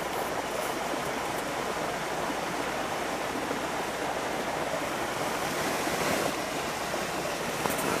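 Small waterfall: water pouring and rushing in a steady, even hiss.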